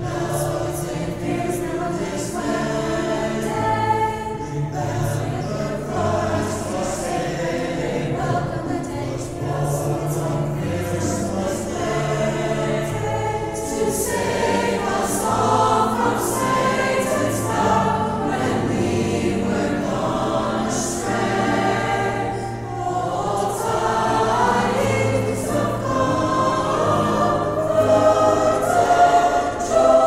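High school choir singing a holiday song.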